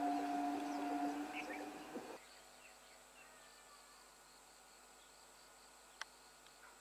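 Horn of an EMU local train sounding a steady two-tone blast over the rush of the approaching train; the horn ends about a second in and the train noise cuts off abruptly about two seconds in. Then faint, steady insect chirping, with a single sharp click near the end.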